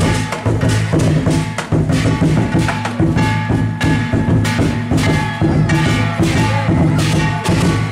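Lion dance percussion: a deep lion drum beating steadily while cymbals clash a few times a second and keep ringing between strikes.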